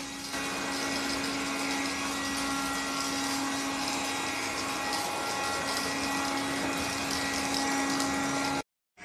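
ELUXGO ALT1019 cordless vacuum cleaner running steadily: an even motor hum with a rush of air, which cuts off suddenly near the end.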